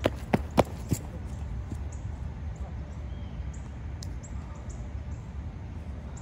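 Running footsteps of shoes slapping on asphalt at a sprint, getting louder as the runner comes close and passing right by about a second in, then stopping. After that only a steady low outdoor rumble with a few faint high chirps.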